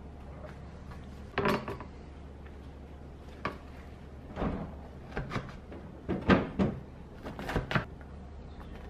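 Chef's knife chopping kimchi on a plastic cutting board: uneven knocks of the blade striking the board, a lone one about a second and a half in, then short runs of two or three, the loudest about six seconds in.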